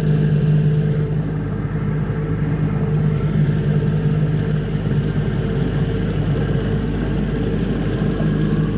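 Yamaha 40 hp tiller outboard motor pushing a small boat along at steady throttle: a constant engine drone over a rush of water and air noise. The engine tone softens a few seconds in and firms up again near the end.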